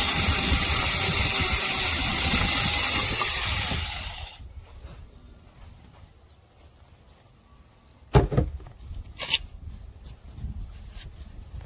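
Small cordless battery mini chainsaw running and cutting wood, with a steady motor whine over the cutting noise; it stops about four seconds in. Two sharp knocks follow later, with faint high chirps in the background.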